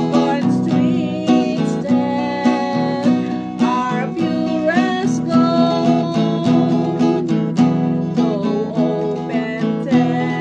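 Music led by acoustic guitar: a steady strummed rhythm with a melody line moving over it.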